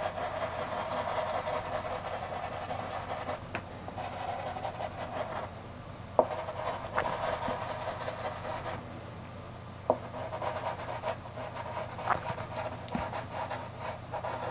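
Soft pastel stick scratching and rubbing across textured pastel paper in continuous strokes, with a few sharp clicks.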